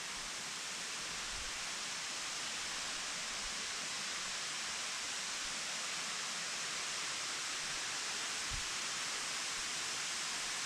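A waterfall about 50 feet high, its falling water making a steady hiss.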